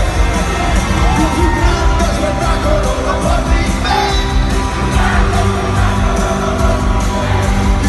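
Live pop concert in an arena: a band playing loud through the PA with singing, and the crowd yelling and whooping along.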